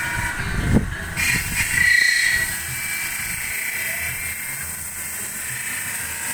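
Hand-held turning tool shaving a copper vessel spinning on an electric-motor-driven lathe: a steady hissing scrape of metal being cut, with a brief higher screech about two seconds in.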